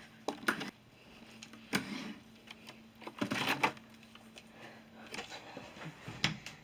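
Rummaging: scattered knocks, rattles and scrapes of things being handled and moved around, with a faint low hum underneath that stops about five seconds in.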